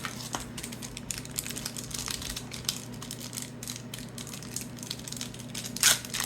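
Sealed 1991-92 Upper Deck trading card pack wrapper crinkling and crackling as it is worked open by hand, with a louder crackle near the end; the pack is tightly sealed and stiff to open.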